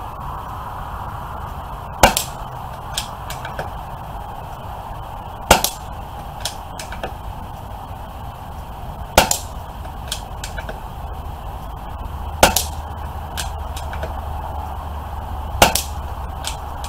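Five air rifle shots, one every three to four seconds, each a sharp crack followed almost at once by a fainter click as the pellet strikes a metal animal-silhouette target.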